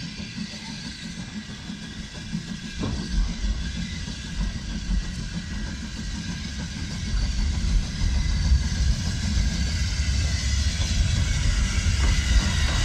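Hawthorn Leslie 0-6-0 saddle tank steam locomotive approaching with its train of coaches, its rumble growing louder as it nears, with a couple of sharp knocks along the way.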